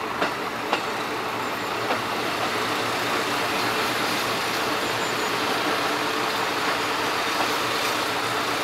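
Diesel railcar engine idling steadily at a station platform, with a few light clicks in the first two seconds.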